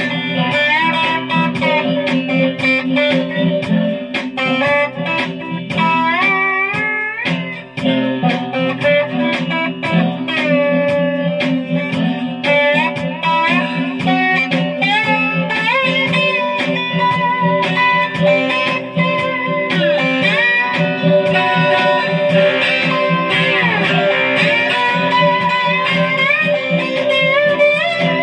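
Guitar played with a slide: notes glide up and down between picked phrases, over steady low notes ringing underneath.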